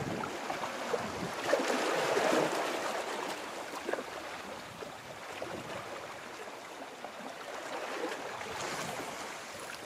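Sea water washing against shoreline rocks, one wave swelling louder about a second and a half in and then easing off, with a smaller swell near the end.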